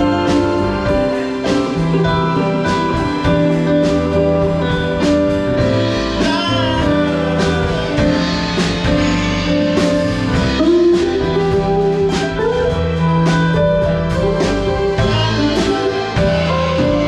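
Live band playing with electric guitar, bass and drums to a steady beat, sustained guitar notes and some bent notes over a kit.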